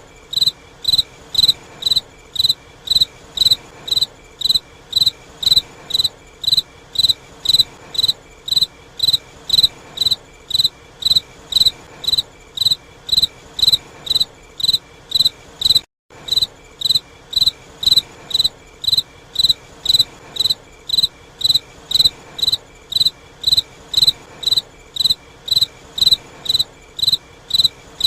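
Cricket chirping steadily, about two short high chirps a second, over a faint hiss: the 'crickets' meme sound used to mark an awkward silence. It breaks off for a moment about sixteen seconds in, then carries on.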